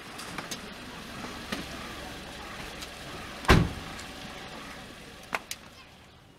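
Steady rushing background noise with several light knocks, and one loud, heavy thump about halfway through.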